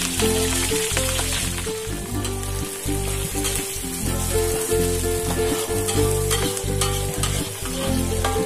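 Papaya flowers and anchovies being stir-fried in a pan: a steady sizzle, under background music with a repeating bass line.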